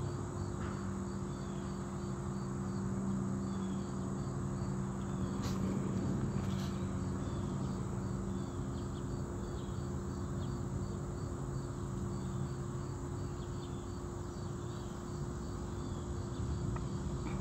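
Insects chirping in a steady, regular pulse of about two short high chirps a second, over a steady low hum.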